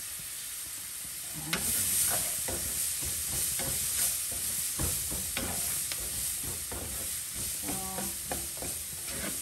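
Onions and celery sizzling in olive oil in a frying pan. From about a second and a half in they are stirred, with irregular scraping and tapping against the pan.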